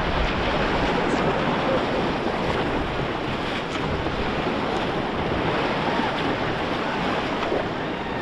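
Rushing white water of a river rapid: a steady, dense wash of churning water around the raft.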